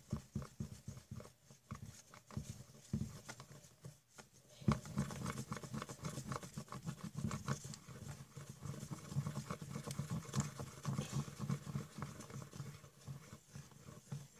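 A thick shampoo mixture being stirred with a mixing tool in a container. Rhythmic strokes come about four a second at first; after a short pause about four seconds in, the stirring turns faster and denser.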